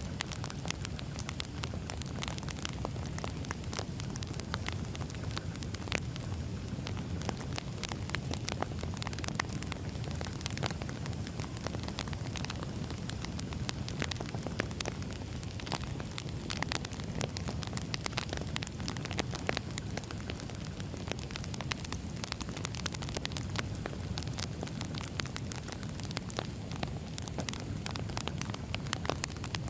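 Split firewood logs burning in a wood fire: a steady low rumble with frequent, irregular crackles and pops.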